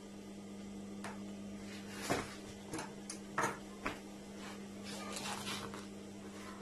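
Tailor's shears handled on a sewing machine table: several light knocks and clicks as they are set down and moved, then cloth rustling as fabric is lifted. A steady low hum sits underneath.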